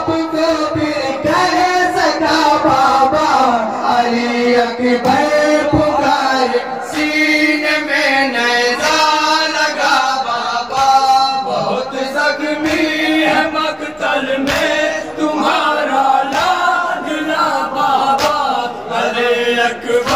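Men chanting a Muharram noha, a Shia lament, through a microphone and loudspeakers. A lead reciter is joined by a group of voices, with sharp slaps from chest-beating (matam) through it.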